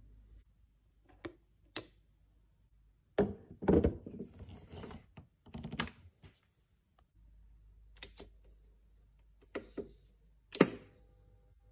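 Scattered metal knocks and clicks from an espresso portafilter being handled and locked into the group head of a Sage Barista Pro, the loudest cluster about three seconds in. Near the end a glass is set down on the drip tray with a sharp click.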